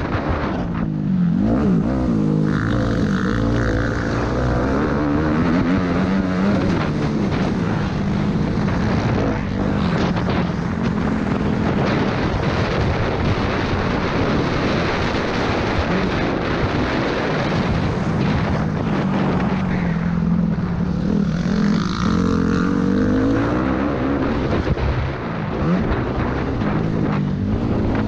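Suzuki RM-Z four-stroke single-cylinder motocross bike engine, heard from on board as the bike is ridden, its revs rising and falling repeatedly as the rider gets on and off the throttle.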